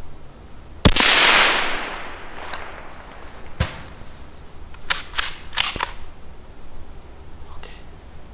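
A single rimfire rifle shot about a second in, a sharp crack whose echo dies away over about a second. It is followed by a lone sharp knock a few seconds later and a quick run of four clicks or knocks.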